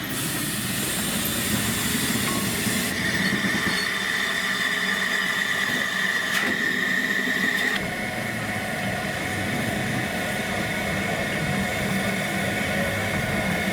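Narrow-gauge steam train arriving at a station: a steady rolling rumble with a high hiss for the first few seconds. A sustained high squeal starts about three seconds in and changes pitch slightly about halfway through.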